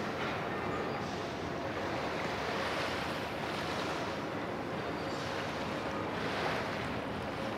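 Steady harbour ambience: a wash of wind and water noise with a faint low hum from the ships' engines, swelling and easing slightly.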